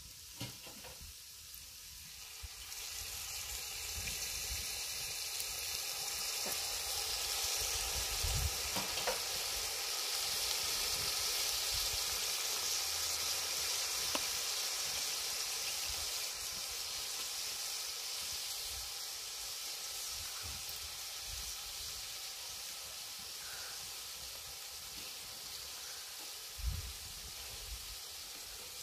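Minced meat sizzling and frying in a hot cast iron camp oven over a wood fire. The sizzle grows louder about three seconds in and then slowly eases, with a dull knock near the end.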